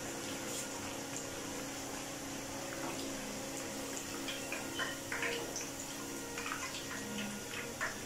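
Hot oil bubbling and sizzling steadily around a katlama deep-frying in a karahi, with scattered small crackles and pops from about three seconds in.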